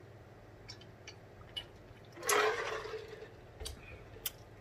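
Drinking from a large plastic water jug: a few faint swallowing clicks, then a short slosh of water in the jug a little over two seconds in.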